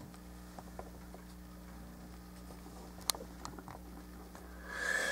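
Quiet room tone with a steady low hum, a few faint clicks, one sharper click about three seconds in, and a soft rushing swell near the end.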